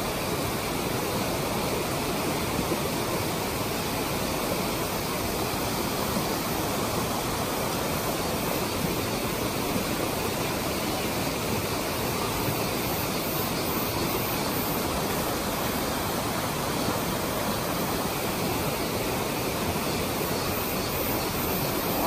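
Mountain stream rushing over rocks in small rapids: a steady, even rush of water.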